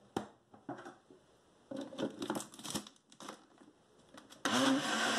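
Knocks and rattles of a plastic blender jar and its lid being handled and fitted. About four and a half seconds in, the blender motor starts suddenly, its pitch rising briefly as it spins up, then runs steadily, mixing a thick cornmeal cake batter.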